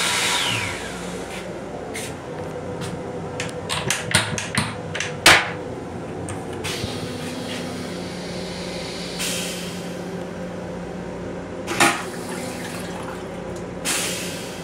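An electric hand dryer winding down, its whine falling and cutting out about half a second in. Then comes a run of clicks and drips, and the railcar toilet's flush water swirls and drains from the stainless bowl, with a few short rushes later on, over the steady hum of the moving train.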